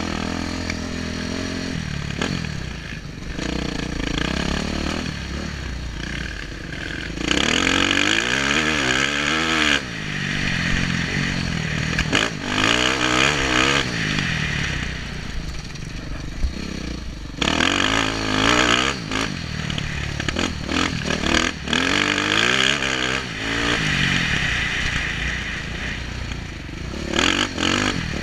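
Dirt bike engine revving hard under the rider, pitch climbing through the gears and dropping back as the throttle is rolled off, in repeated bursts of acceleration. Wind rushes over the helmet-mounted microphone.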